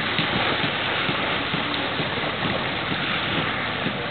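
Steady wind and water noise, with a few faint ticks.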